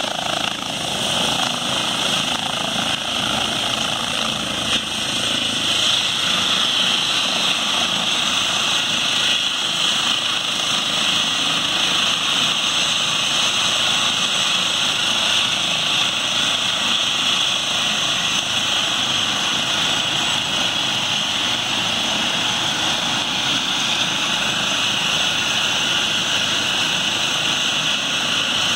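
Light turbine helicopter with a fenestron tail rotor running on the ground: a loud, steady turbine whine over rotor noise.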